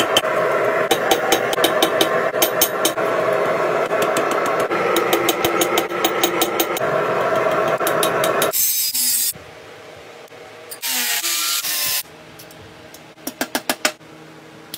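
Runs of hand-hammer blows on red-hot steel at an anvil over a loud, steady background noise. After about eight and a half seconds this gives way to two short spells of scraping, then a quick series of about six taps near the end.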